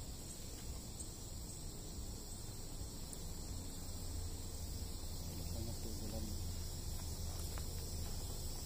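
Steady high-pitched drone of forest insects, over a low steady hum, with a few faint footsteps on the trail.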